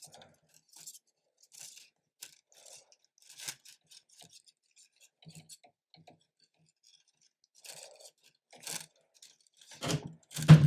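3D-printer filament being pushed by hand through a plastic feed tube into an extruder: short, scattered scrapes, ticks and clicks of stiff plastic, with a louder burst of handling noise near the end.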